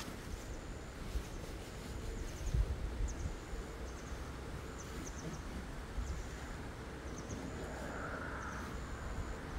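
Rural outdoor ambience: a steady rushing hiss with short, thin, high chirps repeating every second or so, and a few low rumbles, loudest about two and a half seconds in.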